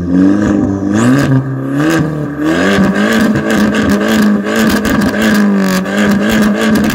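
Abarth Grande Punto Evo's tuned 1.4 turbo four-cylinder revving loudly through a decatted Super Sprint exhaust. The pitch climbs and drops several times, then holds steady in the later seconds.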